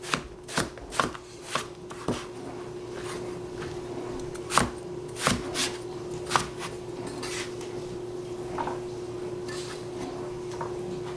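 Cleaver-style kitchen knife cutting eggplant on a plastic cutting board: sharp knocks of the blade reaching the board, about five in the first two seconds and a few more between about four and six and a half seconds in, then only faint handling of the pieces. A steady low hum runs underneath.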